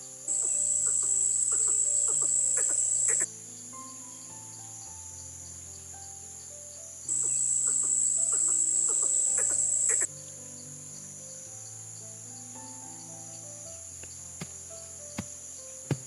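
An insect trilling on one steady high pitch: it is loud for about three seconds at the start and again for about three seconds from around seven seconds in, over a constant fainter insect buzz. A soft, slow melody plays underneath.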